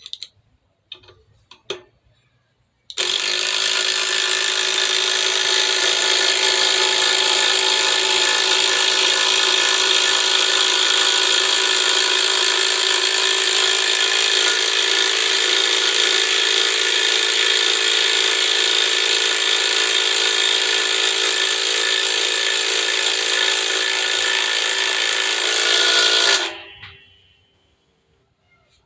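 Cordless impact driver hammering under load. It starts abruptly a few seconds in, runs unbroken for about 23 seconds with a slight swell at the end, then winds down. A few light handling clicks come before it.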